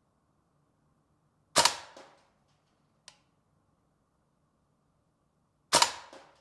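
Tokyo Marui AKM gas blowback airsoft rifle fired twice on semi-auto, about four seconds apart. Each shot is a sharp double crack, and a faint click comes between them.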